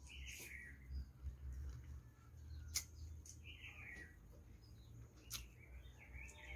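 Faint high chirping calls, several short ones falling in pitch, with a couple of sharp clicks between them over a low steady hum.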